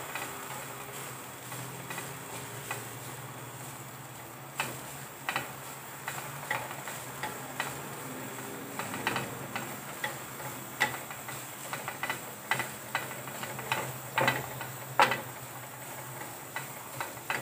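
Coconut roasting in a pan over a low flame, with a steady faint hiss. From about four seconds in, a spoon scrapes and taps against the pan at irregular intervals as the coconut is stirred.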